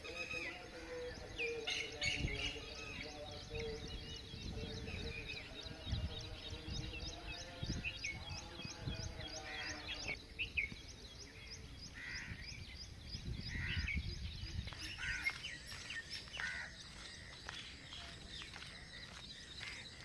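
Village birds calling, one repeating a short high chirp several times a second through the first half, with other scattered calls later. Low thumps run underneath, and in the first half there is a faint steady hum of pitched tones.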